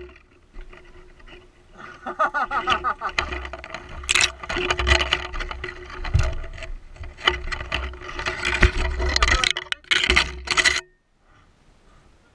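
BMW F650GS dual-sport motorcycle engine running under changing throttle over a rocky track, with knocks and clatter from the bike, then cutting out suddenly about 11 seconds in as the bike stops.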